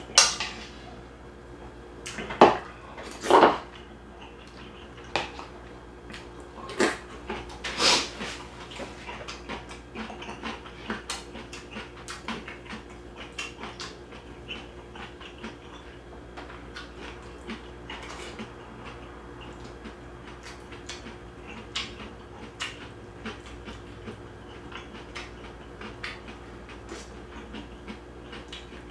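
A person eating beef-bone soup (gomtang): several loud slurps from the bowl in the first few seconds, then steady chewing and lip-smacking with occasional light spoon clinks against the bowl.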